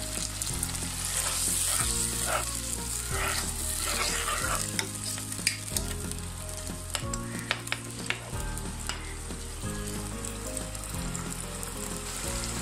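Onions, whole spices and ginger-garlic paste sizzling and bubbling in oil with a little added water in a non-stick pot, while a spatula stirs and knocks against the pan now and then, most often in the middle. This is the kosha stage, where water is added so the masala fries down without catching.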